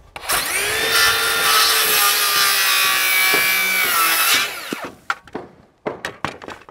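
A circular saw spins up and cuts an angled cut through a 2x6 board for about four seconds, then winds down. A few light knocks follow as the saw and board are handled.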